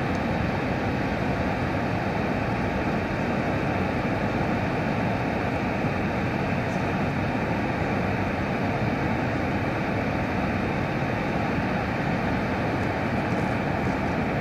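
Horseshoe Falls at Niagara: a steady, unbroken rush of falling water.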